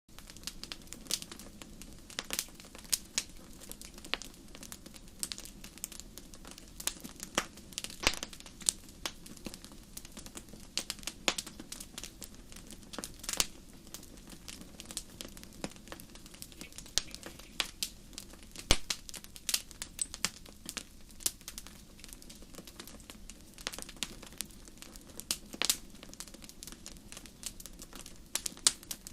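Fire crackling: irregular sharp pops and snaps, several a second, over a steady low rush.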